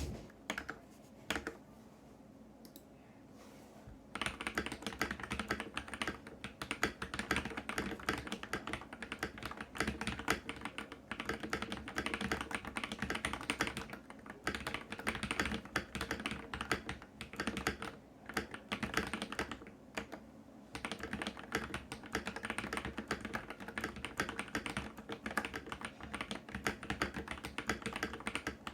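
Typing on a computer keyboard. A few separate keystrokes come first, then fast continuous typing starts about four seconds in and runs on with a few brief pauses.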